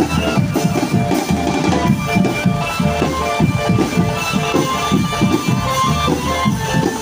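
Drum band playing: dense, quick drumming with bass drum under a melody of long held notes.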